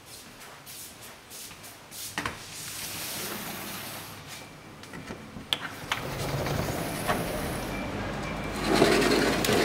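Aluminium sliding balcony door unlatched with a click and slid open along its track. Outside traffic noise grows louder as the door opens, loudest near the end.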